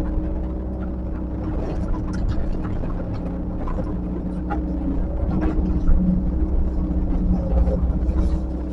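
Heavy earthmoving machine's diesel engine running steadily, with scattered metallic clanks and knocks, swelling slightly about two-thirds of the way in.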